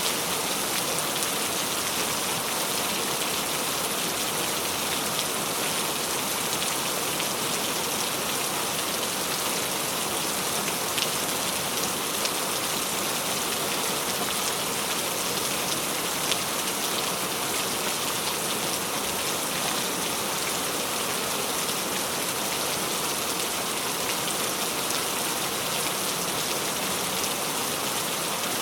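Steady rain falling, a dense even hiss of drops pattering on a surface, with a few slightly louder single drops.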